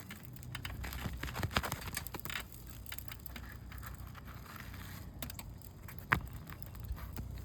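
Asphalt shingle being pried and broken loose from its sealed-down bond: scattered crackling and scraping clicks, with one sharp snap about six seconds in.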